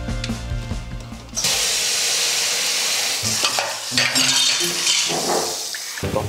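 Background music, then a loud steady hiss that sets in about a second and a half in and stops shortly before the end.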